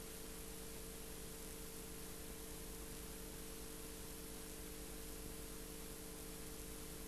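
Steady hiss with a low, steady electrical hum underneath: the noise floor of an old video recording, with no other sound.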